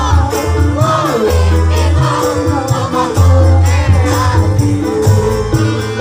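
Live band music with a woman singing lead, over a steady drum beat and a low bass line.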